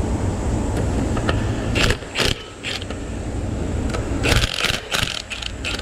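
Scattered metal clinks and scrapes of tools and parts being handled on an engine under teardown, bunched about two seconds in and again past the middle, over a steady low rumble of wind on the microphone.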